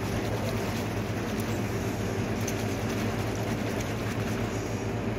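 Carbonated water sloshing in a plastic bottle that is being shaken hard, as done to settle the pressure before reading the CO2 level on a gauge. Under it runs a steady low mechanical hum from machinery.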